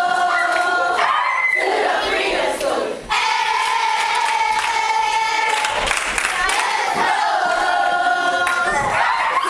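A group of children and adults singing a chant together in unison, with long held notes, and breaking off briefly about three seconds in.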